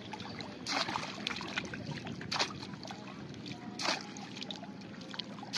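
Bamboo polo fish trap being plunged into shallow floodwater: three sharp splashes about a second and a half apart.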